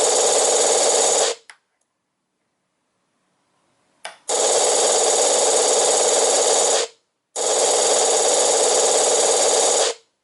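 Electronic sound effects module for RC models playing a synthesized effect: loud bursts of harsh, rasping noise a couple of seconds long that switch on and off abruptly. There is a silent gap of about three seconds early on and a short one before the last burst.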